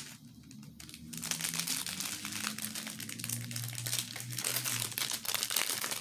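Plastic packaging crinkling as a diamond-painting kit's plastic-sleeved canvas and small bags of drills are handled. The crackling starts about a second in and goes on irregularly.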